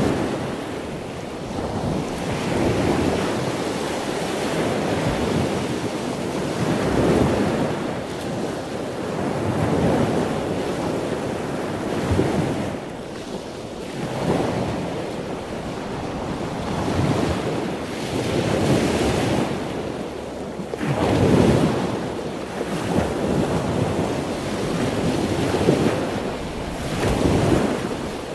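Lake Michigan waves washing onto a sandy beach, the surf swelling and falling back every two to three seconds.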